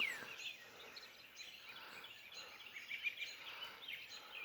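Dawn chorus of songbirds: many overlapping chirps and whistled phrases, faint, with a clear downward-sliding whistle at the start.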